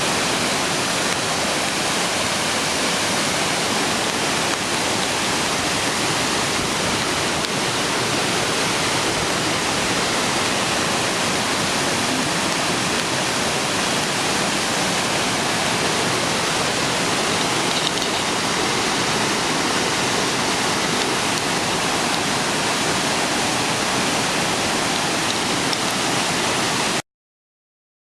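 Jion Falls pouring: a steady, dense rush of falling water that cuts off abruptly about a second before the end.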